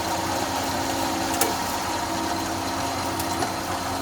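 Single-phase electric wood planer running steadily, a constant motor hum with a faint tick about one and a half seconds in.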